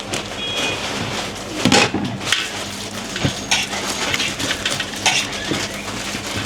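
Dishes and metal utensils clattering, an irregular run of clinks and knocks, a few louder knocks about two and three seconds in, over a steady faint hum.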